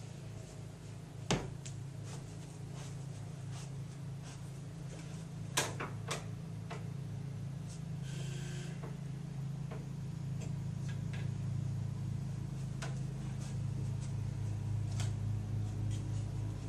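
Someone moving about a small room: a few scattered knocks and clicks, the sharpest about a second in and about five and a half seconds in, and a short rustle about eight seconds in, over a steady low hum.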